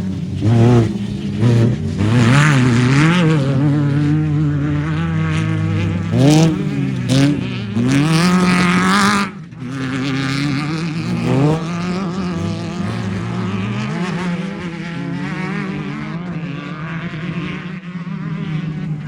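Off-road race vehicle engines revving and accelerating hard, the pitch rising and falling repeatedly with throttle and gear changes.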